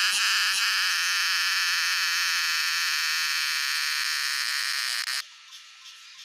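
A cicada's loud, steady, shrill buzz. It cuts off abruptly about five seconds in, leaving a much fainter pulsing buzz.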